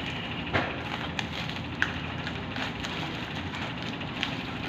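Package being handled during unboxing: a handful of sharp clicks and taps over a steady hiss.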